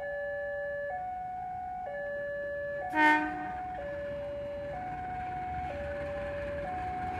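Railway level crossing alarm sounding two alternating tones, switching about once a second. A short, loud horn toot comes about three seconds in, and a rising rumble of an approaching train builds after it.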